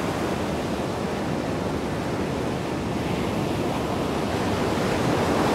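Steady rushing wind noise on the microphone of a moving camera, with no tone or rhythm in it.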